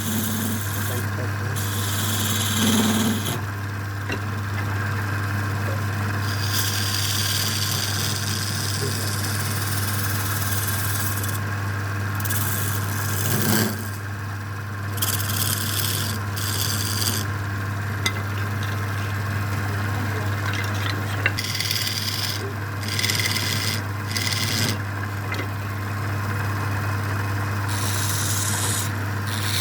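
Wood being abraded in irregular passes, each a second to a few seconds long, over a steady low hum.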